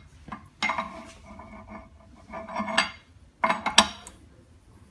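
Aluminium mold plate being slid and knocked against the metal base of a manual frame laminating machine. Several metallic clinks and knocks with scraping and ringing between them, the loudest two close together about three and a half seconds in.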